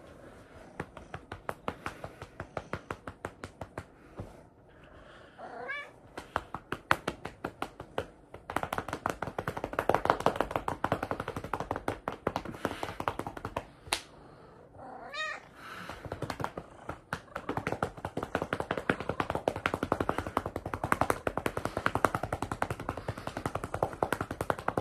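A hand rapidly patting a cat's rump, a fast run of soft slaps several a second. The pats break off briefly twice, and the cat meows in each lull, about five seconds in and again around fifteen seconds in.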